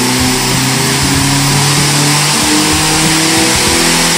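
Tuned diesel truck engine held at full throttle on a chassis dynamometer, a loud, dense roar of exhaust and turbo, with background music stepping through notes under it.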